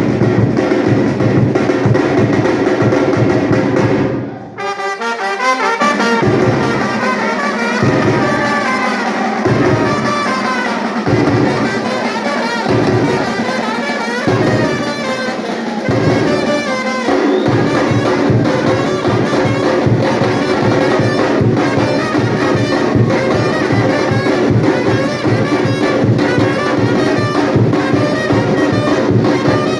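Live batucada band playing: percussion drums with trumpets and trombones. About four seconds in the band cuts out briefly, then the horns play over stop-start drum hits until the full drum groove comes back in a little past halfway.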